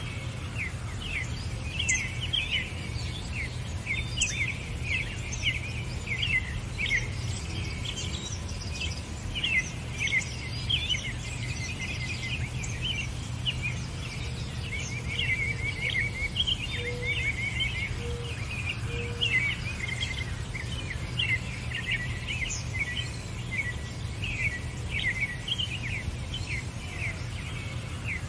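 Many small birds chirping, dense and overlapping short high chirps with no let-up, over a steady low hum.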